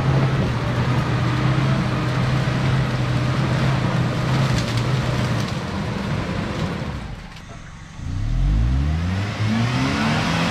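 Off-road 4x4 engine running steadily under load, fading briefly about seven seconds in, then revving up with a rising pitch near the end.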